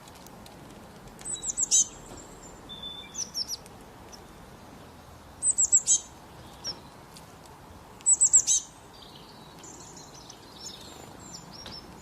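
A bird calling: three loud bursts of four or five quick, very high chirps, with softer calls and twittering between them.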